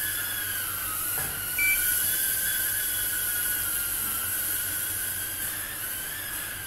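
Micro FPV quadcopter flying, its tiny motors giving a steady high whine that wavers slightly in pitch with the throttle and dips briefly about a second in. A short high beep sounds about a second and a half in.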